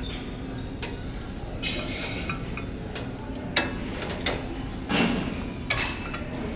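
Scattered metallic clicks and clinks from a cable machine's chain and ankle-strap clip as the cable is worked in glute kickbacks, the sharpest about three and a half seconds in.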